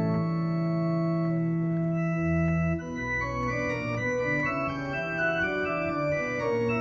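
Organ playing offertory music during the preparation of the gifts: long held chords for the first few seconds, then shorter moving notes from about three seconds in.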